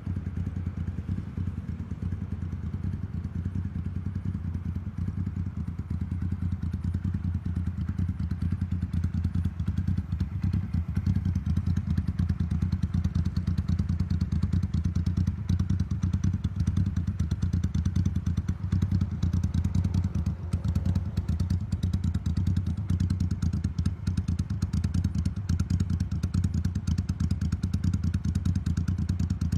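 Motorcycle engine idling steadily on an aftermarket Mikuni TM40 carburettor, an even stream of exhaust pulses, a little louder from about ten seconds in.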